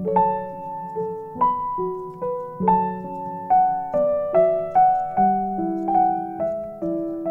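Background piano music: a gentle melody of struck notes, each one fading before the next, a little under two notes a second.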